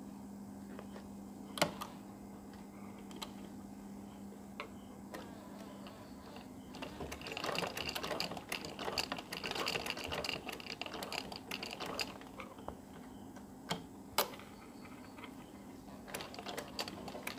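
Domestic straight-stitch sewing machine stitching through cotton fabric: a rapid needle clatter that runs for about five seconds in the middle and starts again near the end, with a few sharp single clicks before and between the runs.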